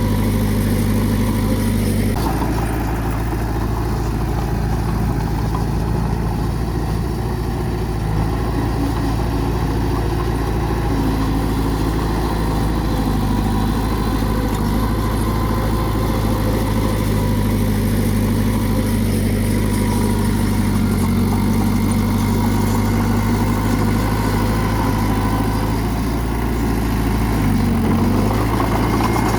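Bulldozer's diesel engine running steadily under work, its engine note shifting a couple of times.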